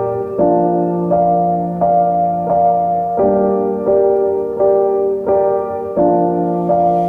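Piano or keyboard music: sustained chords struck in an even, repeating rhythm, changing about every two-thirds of a second.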